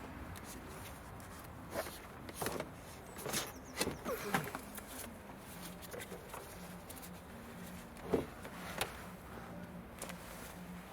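Heavy car battery being wrestled out of its tight compartment: scattered knocks and scraping of the plastic battery case against the sides, a cluster a couple of seconds in and two more knocks later, over a low steady hum. It sticks on the side and has to be pulled hard.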